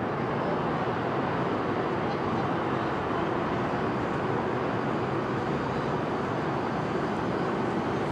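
Steady traffic noise of a busy city street, an even rush of passing cars with no single event standing out.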